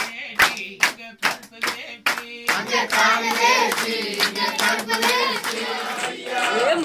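A group of people clapping in a steady rhythm, about two to three claps a second. A few seconds in, a group of men's voices joins in singing a Tamil devotional bhajan over the clapping.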